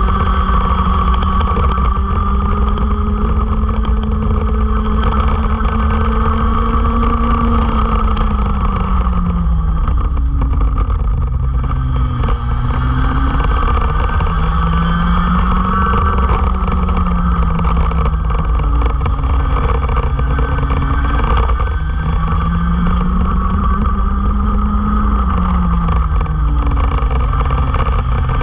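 Racing go-kart engines running hard, their pitch rising as they accelerate and dropping off as they slow for corners, several times over, above a steady heavy low rumble.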